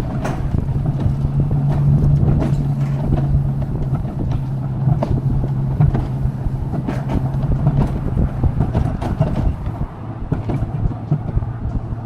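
Alpine coaster cart running along its metal rail: a steady low rolling hum and rumble from the wheels, with scattered clicks and knocks. The hum fades about ten seconds in.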